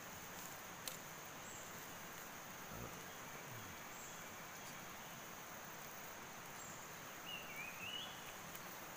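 Faint, steady, high-pitched drone of forest insects, with a single sharp click about a second in and a short warbling whistle, like a bird call, near the end.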